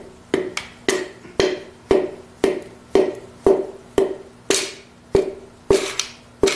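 Rubber mallet tapping a piston down through a ring compressor into the cylinder bore of a Ford 429 V8 block: about a dozen light, even knocks, roughly two a second. The rings are being eased into the bore gently rather than forced.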